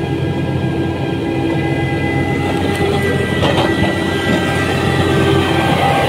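Heavy diesel construction machinery, a motor grader and a smooth-drum road roller, running steadily with a droning engine note and a high steady whine, growing a little louder as the grader comes close near the end.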